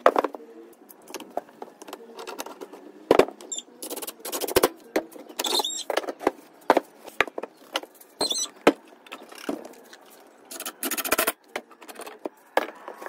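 HPL-laminated plywood panels knocking, sliding and scraping on a wooden workbench as they are handled and stood on edge to form a cabinet box, with a few short squeaks. A longer scraping rattle about eleven seconds in as a metal bar clamp is fitted across the box.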